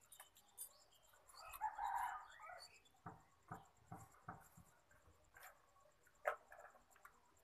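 Quiet: a few faint crackles and clicks of a crisp fried samosa being broken apart by hand and eaten, with a sharper click near the end. A faint call is heard about a second and a half in.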